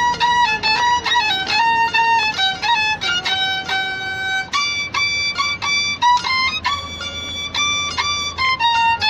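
A small wooden street fiddle played solo, bowed in a lively melody of short and held notes, sliding between some of them.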